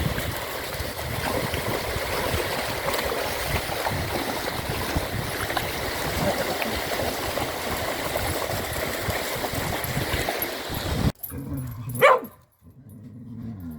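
Sea surf washing on a beach with wind on the microphone, cut off abruptly about eleven seconds in. A moment later comes a single loud, high dog yelp that rises and falls, then a low dog whine.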